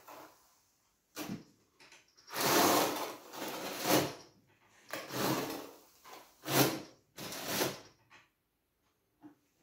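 Notched steel trowel scraping through cement tile adhesive spread on the back of a large-format tile, in about six separate combing strokes.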